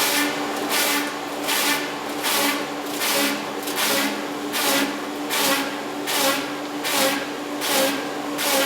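Log lathe milling a spinning log down from 10 to 8 inches: a steady motor hum under a rasping wood-cutting noise that swells about every three-quarters of a second as the log turns against the cutter.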